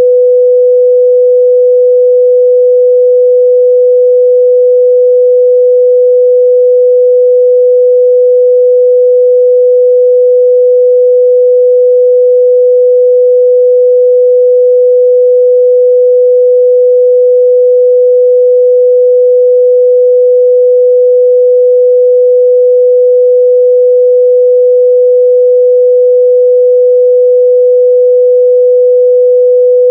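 A steady, loud 497 Hz sine-wave test tone, one pure pitch held without change.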